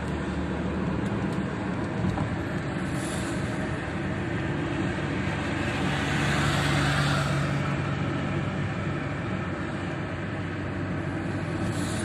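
Rain and wet-road noise heard inside a car driving on a highway in the rain: a steady rush over a low hum. The rush swells about six seconds in and eases off again by about eight seconds.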